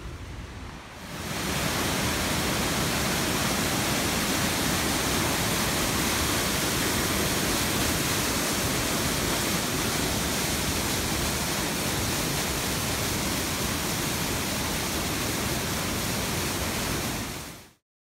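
Waterfall rushing: steady, loud water cascading over rocks, which sets in about a second in and fades out sharply just before the end.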